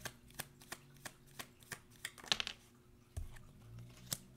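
Tarot cards being shuffled by hand: a quick run of light card clicks, about four a second, that thins out after two and a half seconds. A single low thud follows a little past three seconds.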